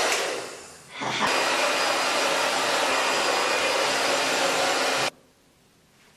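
Handheld hair dryer blowing: its steady rush fades and comes back strongly about a second in, runs evenly, then cuts off suddenly about five seconds in.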